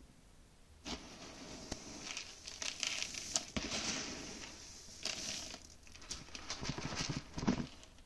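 A hand digging and stirring through dry malted barley grains in a plastic bin: a crackly rustle of shifting grain that starts about a second in and dies away near the end.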